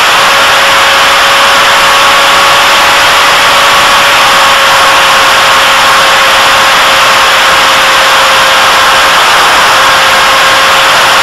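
Model airplane's motor and propeller heard from the onboard camera, holding a steady whine at near-constant pitch under heavy wind rush.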